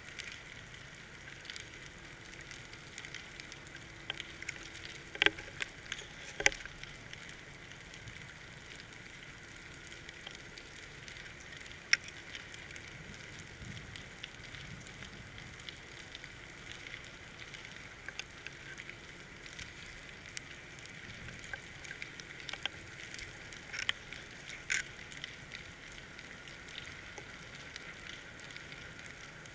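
Underwater sound heard through a GoPro's waterproof housing: a steady hiss with scattered crackling clicks, and a few sharper clicks stand out.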